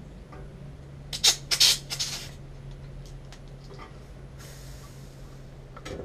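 Pressurised gas and flush spurting out at a refrigerant line fitting in a few short, loud sputtering hisses about a second in, then a fainter hiss later on, with small clicks of the fittings being handled.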